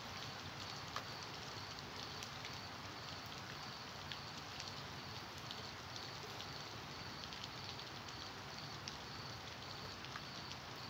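Steady rain falling, with scattered drips landing close by.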